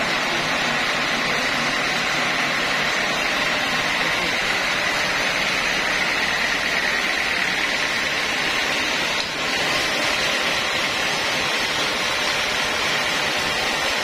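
Band sawmill running with a steady, even noise, dipping briefly about nine seconds in.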